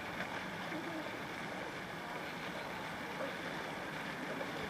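Steady open-air background noise, an even hiss with faint, indistinct distant voices.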